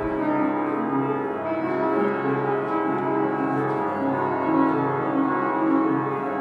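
Instrumental music with held keyboard chords over a repeating low note.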